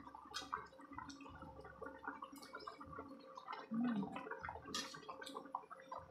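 Fish and pechay broth boiling in a pot, bubbling and popping irregularly. A short low hum sounds a little past the middle.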